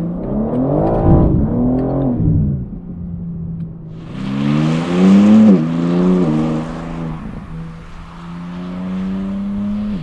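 BMW G80 M3's twin-turbocharged 3.0-litre inline-six under hard acceleration, the revs climbing and dropping several times as it shifts up through the gears. Near the end it settles into a steadier, slowly rising drone as the car pulls away.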